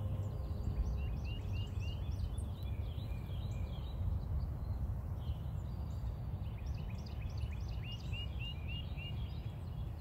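Songbirds singing and twittering, with a run of quick repeated chirps at about four a second shortly after the start and again in the second half. Under them runs a steady low background rumble.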